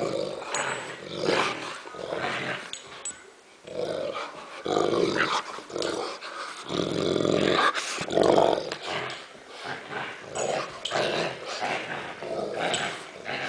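Dogs growling in play during a tug-of-war over a toy, a run of rough growls that grow longest and loudest a little past the middle.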